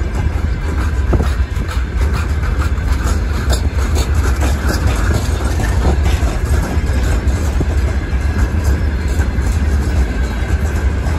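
Freight train of loaded gondola wagons rolling past: a steady, loud low rumble of wheels on rail with scattered clicks from the wheelsets.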